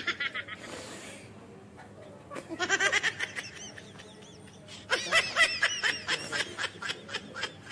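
High-pitched giggling laughter in three bursts of quick, repeated 'hee-hee' sounds. The longest and loudest burst comes about five seconds in.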